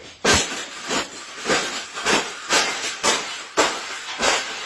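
A wire bird cage being bent and crushed flat: a rhythmic series of about eight scraping, rattling crunches, roughly two a second.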